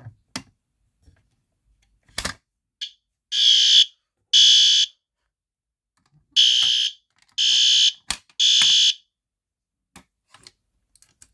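A pull station's handle clicks, and a System Sensor P2R SpectrAlert Advance fire alarm horn sounds in loud half-second blasts: two, a pause, then three more in the temporal-three evacuation pattern, then it falls silent.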